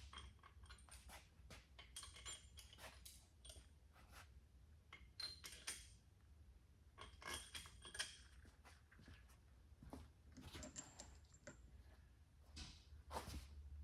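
Faint, scattered metallic clinks and light taps of steel head bolts and washers being handled and set into an engine's cylinder head, a few of them ringing briefly.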